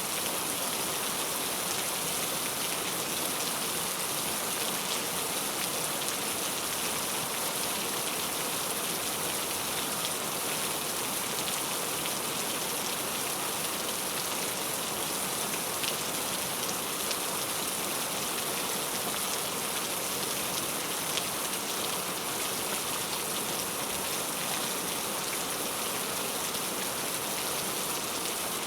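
Heavy rain falling steadily on a hard surface, an even hiss with scattered drop ticks.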